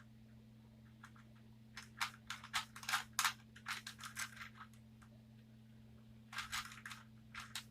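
A plastic Rubik's Cube being twisted by hand, its layers clacking in a quick run of sharp clicks for a couple of seconds and then a shorter run near the end, over a steady low hum.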